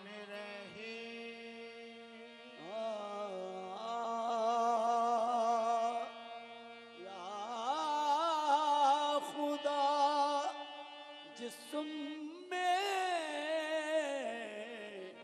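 Live Punjabi Sufi devotional singing: a singer holds long, wavering vowel notes in three phrases, each sliding up into a note and then shaking on it, over a steady harmonium drone.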